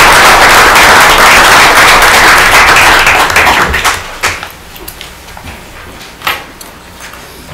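Audience applauding in a meeting room. The clapping fades out about four seconds in, leaving only a few scattered taps and knocks.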